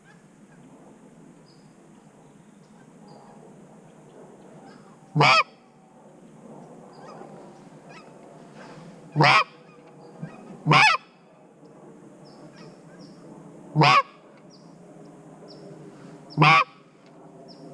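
Five loud single goose-like honks, each about half a second long, spaced irregularly a few seconds apart.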